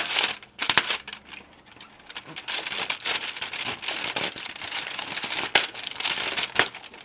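The perforated cardboard door of a Maltesers chocolate advent calendar being scratched at and torn open by fingers: a run of scratchy crinkling and tearing with a few sharp clicks.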